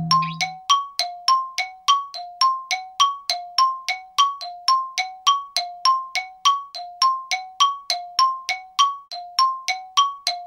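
Background music: a bell-like two-note figure of struck tones, alternating low and high at an even pace of nearly three notes a second.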